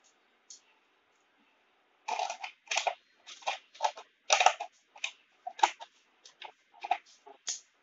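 Stiff clear plastic blister packaging crinkling and crackling in quick, irregular bursts as it is cut with scissors and pulled at, starting about two seconds in.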